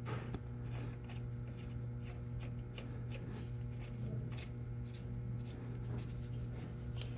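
Small threaded steel pipe fittings being handled and screwed together by hand, giving light irregular clicks and scraping, over a steady low hum.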